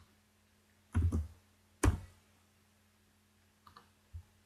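A few short clicks from computer mouse and keyboard use: a duller knock about a second in, the loudest, sharpest click just under two seconds in, and fainter clicks near the end.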